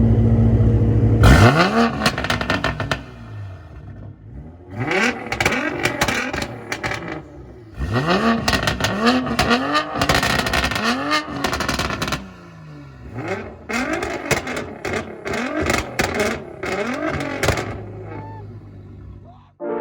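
2020 Toyota Supra's turbocharged inline-six through a Boost Logic aftermarket exhaust, revved in repeated quick blips that rise and fall in pitch, with sharp crackles and pops between them. The blips come in four bunches, and the last one fades out near the end.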